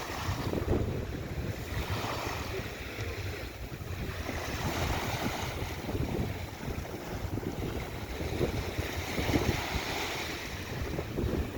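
Mediterranean sea waves breaking and washing ashore in slow, repeated swells of surf, with wind rumbling on the microphone.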